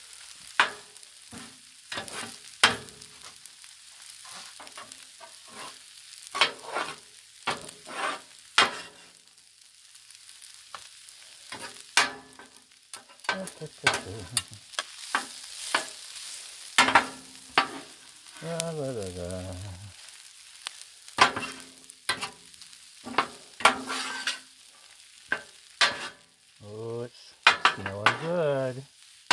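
Two metal spatulas clacking and scraping irregularly on the steel top of a Blackstone griddle as they toss and chop fried rice with red beans and sausage, which sizzles underneath.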